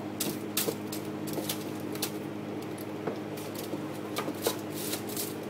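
Pastry brush egg-washing a puff pastry sheet in a foil-lined baking tray: light, irregular taps and clicks over a steady low hum.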